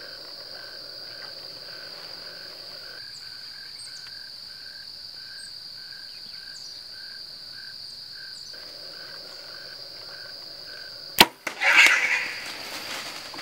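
Steady high insect drone with a chirp about twice a second. About 11 seconds in, the compound bow releases with one sharp crack, followed at once by a short, loud burst of noise from the arrow striking the hog.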